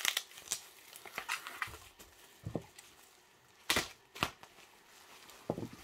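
Bubble wrap crinkling and rustling as a wrapped package is handled, with scattered sharp crackles; the two loudest come about three and a half and four seconds in.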